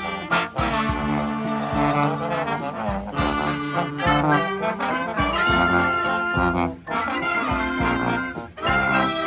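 Brass band playing a tune: trombones and trumpets hold sustained notes over a steady percussion beat.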